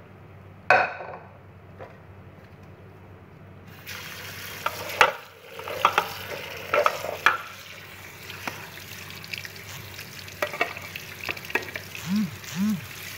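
Tap water running onto cooked macaroni in an aluminium colander in a stainless steel sink, starting about four seconds in, with knocks and clatters of the metal colander as it is shaken.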